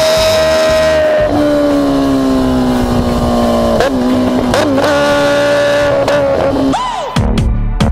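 Kawasaki H2 motorcycle engine running hard at high revs at highway speed. Its pitch holds steady, drops about a second in, then steps up and down several times, with a quick rev up and back down near the end. Electronic music with a wobbling bass comes in just before the end.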